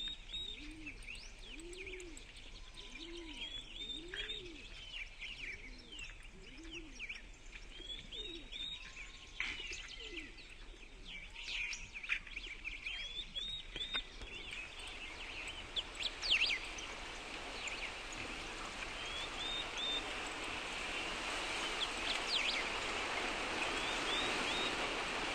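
Forest ambience of many songbirds chirping and trilling, with a run of low, repeated calls in the first several seconds. From about halfway on, a rushing noise builds steadily louder under the birdsong.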